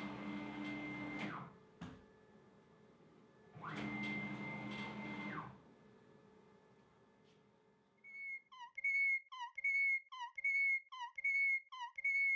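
CNC router gantry stepper motors driving the machine along twice, each move about two seconds long: a whine that climbs in pitch as the motors speed up, holds steady, then drops as they slow and stop. The overhead dust-collection hose arm is dragged along with the spindle. From about two-thirds of the way in, a run of short whistle-like chirps, about two a second.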